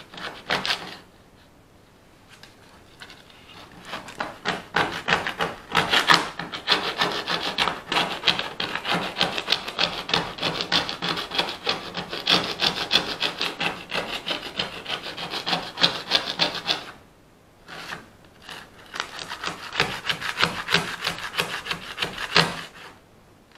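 Rapid scraping strokes of a hand file working a small model-train part down to fit. The filing comes in long runs broken by pauses of a second or two.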